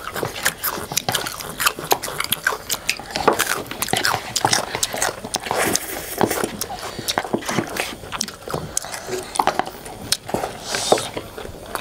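People chewing and biting food, instant noodles and fried chicken, heard as a dense run of short, crisp mouth clicks.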